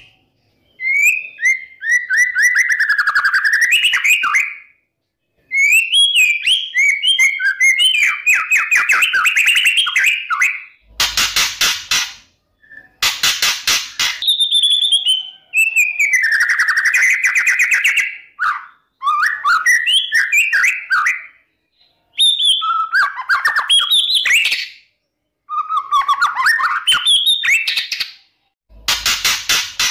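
White-rumped shama (murai batu) singing loudly, with phrases of rapid whistled notes and sliding whistles a few seconds long and short gaps between them. Three times the song is broken by a brief, loud, harsh burst of noise.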